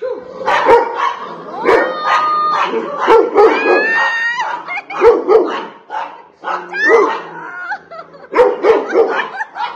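Rottweiler barking repeatedly, many of the barks coming in quick pairs, with higher-pitched yelps and a few rising whines mixed in.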